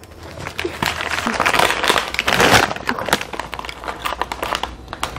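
Crinkly plastic snack bags being handled: a rapid, irregular crackling, busiest about one to three seconds in, as a bag of chips is picked up and gripped.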